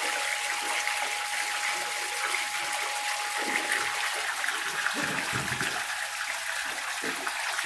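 Water draining out of a Milnor industrial washing machine through a makeshift drain hose, a steady rush of running water.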